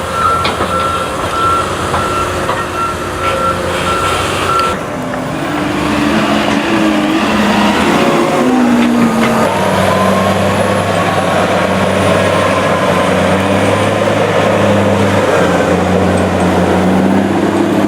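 A reversing alarm on heavy construction equipment beeps rapidly until about five seconds in, over a machine's engine running. The engine then changes pitch and settles into a loud, steady run under load.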